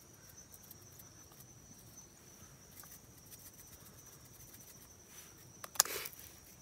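Quiet background with a faint steady high-pitched tone. Near the end comes a short burst of rustling and clicks as a salt packet is handled over a steel bowl of flour.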